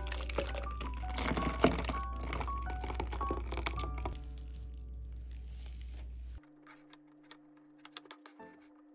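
Thick canelé batter pouring and splattering into a plastic container, over light background music with short plucked notes; the pouring dies away about four seconds in.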